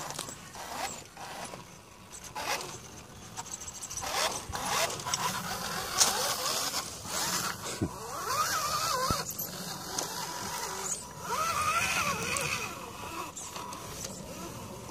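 Axial Wraith RC rock crawler's 80T brushed motor and drivetrain whining, the pitch rising and falling with the throttle as it crawls. Scattered clicks and scrapes from the tyres working over boards and rocks.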